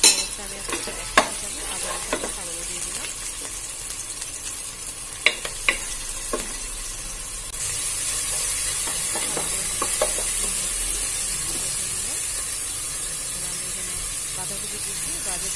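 Chopped onion, green chillies and ginger-garlic paste sizzling in hot oil in a pan, with a few sharp knocks of a wooden spatula against the pan in the first half. The sizzling gets louder about halfway through as the mixture is stirred.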